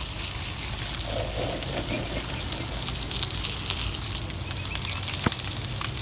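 Water gushing from a pipe and splashing onto bare dirt as it fills a hollow in the ground, with a crackly spatter over a steady low hum.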